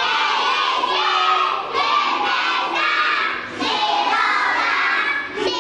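A class of young children singing loudly together in unison, in phrases of about two seconds with brief breaks between them.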